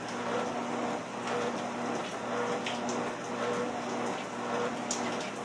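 Treadmill running as someone walks on it: a steady motor hum that swells in a regular beat about once a second, with rain falling in the background.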